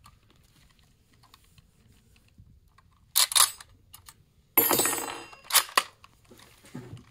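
Pattern 1914 rifle being loaded from a .303 stripper clip: soft clicks of cartridges pressed down into the magazine, then sharp metallic clacks about three seconds in, a longer ringing metal rattle a second and a half later and another clack shortly after as the bolt is worked.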